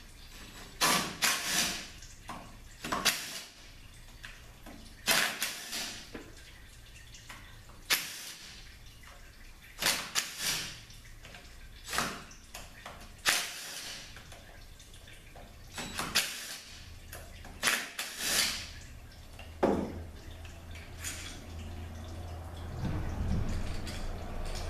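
Cordless drill-driver with a T30 Torx bit running in about fifteen short bursts, each under a second, backing the screws out of an automatic transmission's solenoid pack.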